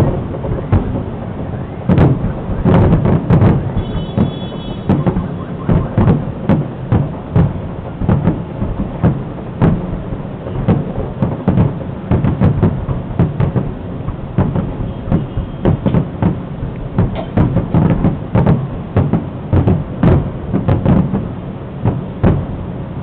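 Fireworks display: aerial shells bursting in quick succession, a dense run of booms and sharp reports, several a second, over a low rumble.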